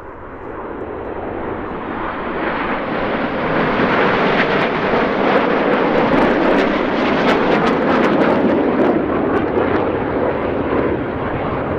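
A formation of BAE Hawk T1 jets flying past, the jet engine noise building over the first few seconds and staying loud, easing slightly near the end.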